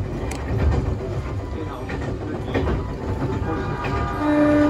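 Ex-Odakyu Romancecar electric train running as the Nagano Electric Railway limited express Yukemuri, heard from the front observation seats: a steady low rumble with occasional rail-joint clicks. A loud steady pitched tone with overtones comes in near the end.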